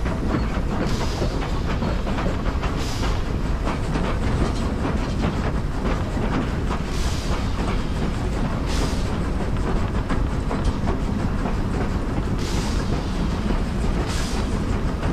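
Vintage steam train running along the track: a steady rumble with the clickety-clack of the wheels. Pairs of brief hissing bursts come back every five or six seconds.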